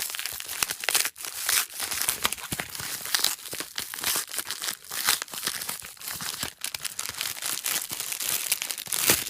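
Packaging crinkling and tearing as a mailed package is pulled open by hand: dense, irregular crackling, with a louder crackle near the end.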